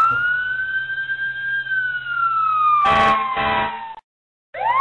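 A wailing siren sounding as an earthquake alarm: its tone swoops up, holds high, then slowly sinks. It cuts off abruptly about four seconds in and swoops up again half a second later, with two short bursts of noise about three seconds in.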